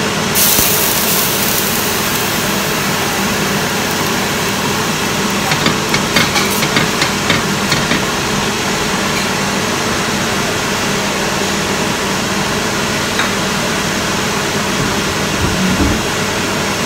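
Steady hum of a kitchen fan over a hot cast-iron griddle. About half a second in there is a sharp burst of sizzling hiss, and around six seconds in a short spell of light crackling and scraping as the griddle surface is rubbed down before the dosa batter goes on.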